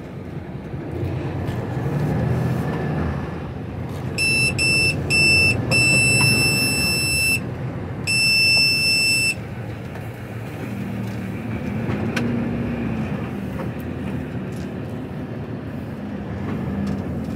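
HGV diesel engine heard from inside the cab, pulling away and running with slow swells in pitch as it works through the gears. A run of high electronic beeps sounds over it a few seconds in: three short beeps, then two long ones.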